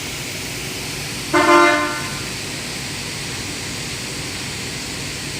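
Double-head aluminium cutting saw running with a steady whirring noise. About a second and a half in, a loud pitched tone sounds for about half a second.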